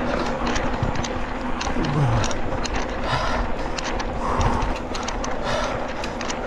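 Mountain bike running downhill on a dirt trail: a steady rush of tyres and air, with frequent sharp clicks and rattles from the bike over the bumps.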